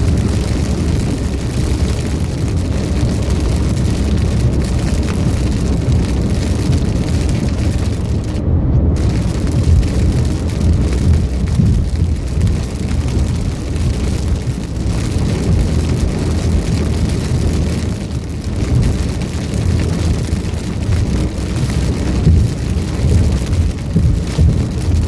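Heavy rain beating on a car, over a steady low rumble of road and engine noise. The higher hiss cuts out for a moment about eight seconds in.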